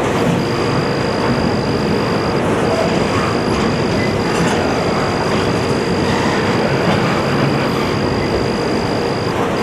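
Norfolk Southern intermodal stack train rolling past: a steady, unbroken noise of its double-stack and well cars' wheels on the rail, with a thin high tone held over it.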